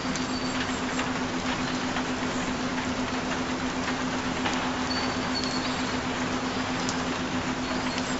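Steady rain noise with occasional sharper drop ticks, over a continuous low steady tone.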